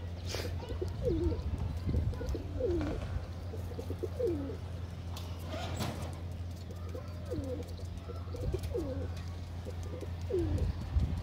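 Domestic pigeons cooing over and over, short swooping coos about once a second, over a steady low hum.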